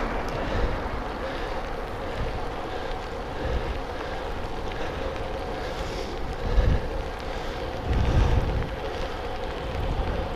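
Wind rushing over a bike-mounted action camera's microphone as a road bike rides along in light rain, with harder buffeting gusts about six and a half and eight seconds in.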